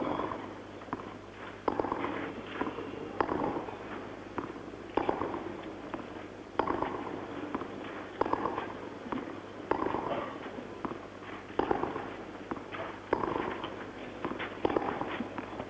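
Tennis ball struck back and forth in a baseline rally on clay: about ten sharp racket hits, one every second and a half or so, each with a short ring after it.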